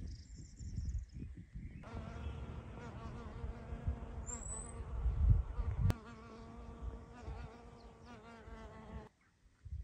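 A bee buzzing in flight around low flowering plants: a steady, slightly wavering hum that starts about two seconds in and stops about a second before the end, over a low rumble, with one brief high chirp partway through.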